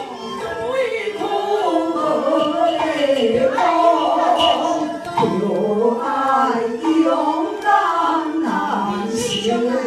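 Women singing a Taiwanese story song in the gezaixi (Taiwanese opera) style, several voices carrying one melody in long, gliding sung phrases.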